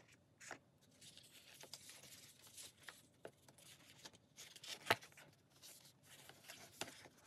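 Faint rustling and sliding of cardboard and paper packaging being unfolded by hand, with scattered small clicks and one sharper tap about five seconds in.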